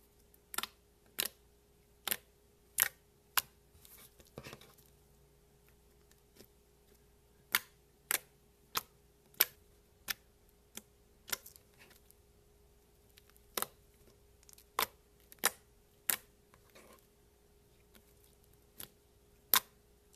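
Fingertips pressing and poking into soft slime, making sharp clicking pops of trapped air, irregular, one every half second to a second, with a couple of short pauses.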